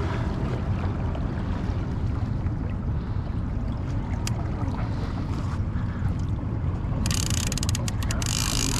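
Wind rumbling on the microphone on an open boat. About seven seconds in, a louder hiss with a few crackles joins it.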